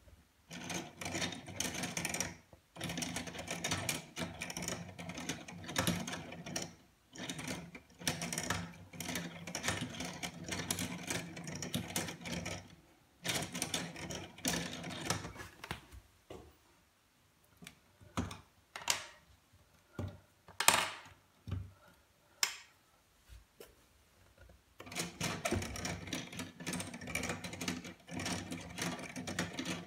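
Hand-cranked LEGO automaton mechanism: plastic gears, cams and axles clattering in rapid clicks as the crank is turned. The clicking stops briefly a few times, gives way in the middle to a few separate knocks, then runs on again steadily near the end.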